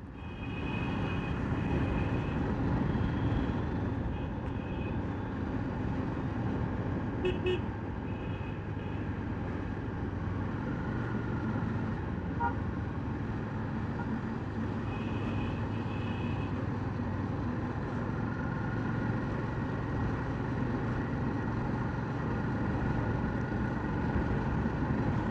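Riding a Bajaj Dominar 400's single-cylinder engine through city traffic: steady engine and road noise, with vehicle horns tooting several times, about a second in, around four and seven seconds, and again about fifteen seconds in.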